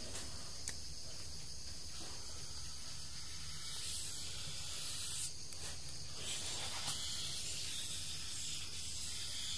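Steady high hiss over a low hum. About four seconds in, a felt-tip marker scratches across paper as a number is circled.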